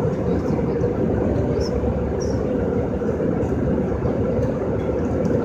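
Steady rumble of a moving vehicle's interior, like cabin noise in a train or plane.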